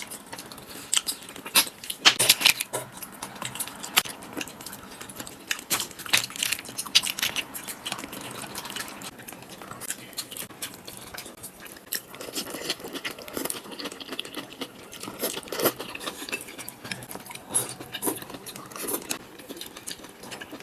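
Irregular light clicks and knocks, some sharper than others.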